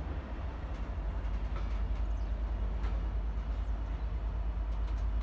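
Colas Rail diesel locomotive hauling a train of open box wagons slowly past: a steady low rumble that grows a little louder, with a few sharp clicks and clanks from the wagons.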